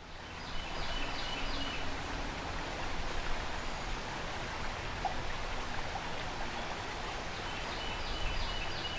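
River water rushing through a riffle: a steady rushing noise that fades in over the first second. A short phrase of high chirps comes in near the start and again near the end.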